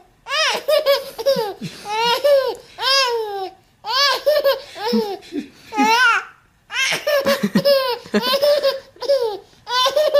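Baby laughing hard in repeated bouts, each a quick run of high, rising-and-falling laugh notes, with short pauses for breath between them.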